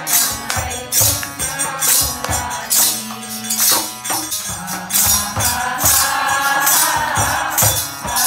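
Devotional kirtan music: group singing led on a microphone over a harmonium, with a hand drum and jingling percussion keeping a steady beat of about two strokes a second.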